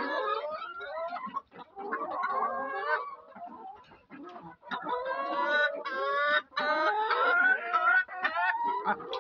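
A flock of free-range laying hens clucking and calling over one another, louder and busier in the second half.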